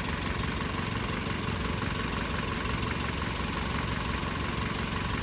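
2015 Kia Sorento engine idling steadily, running properly now that both faulty camshaft position sensors have been replaced.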